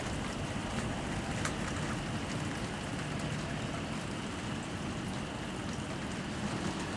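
Steady rain from a severe thunderstorm, with a few sharper drop hits standing out.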